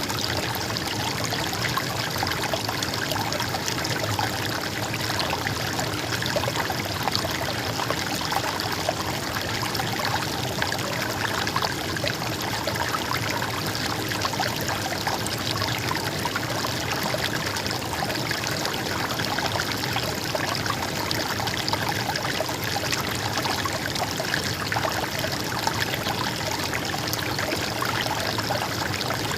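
Flowing stream water, a steady gurgling trickle with no change in level.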